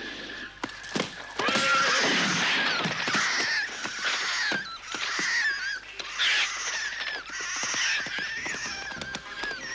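Loud, shrill animal cries, wavering and warbling, repeated in a noisy chorus from about a second and a half in, with scattered sharp knocks among them.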